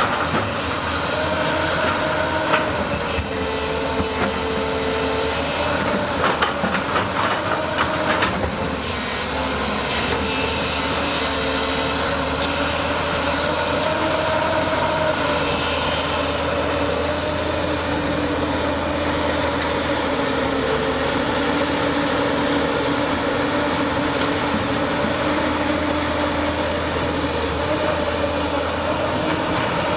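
A Caterpillar 320C hydraulic excavator working: its diesel engine runs steadily under load, its pitch rising and falling as the hydraulics work. Scattered knocks and clanks of the bucket digging through rock and mud come in the first eight seconds or so.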